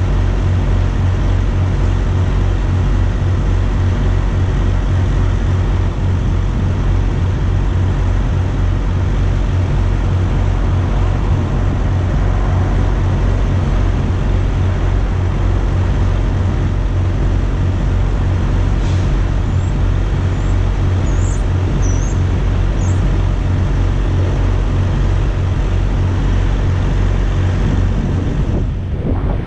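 Steady low rumble of road traffic and running engines, with a constant hum underneath. A few faint high chirps come in about two-thirds of the way through.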